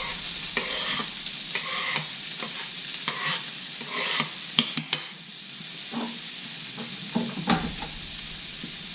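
Strips of ham sizzling in hot olive oil in a wide paella pan, a steady high hiss, with a utensil scraping and knocking against the pan as the ham is moved around; two sharp clicks about four and a half seconds in.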